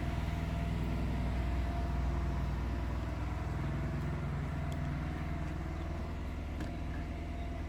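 Pressure washer's engine running steadily, a low even hum.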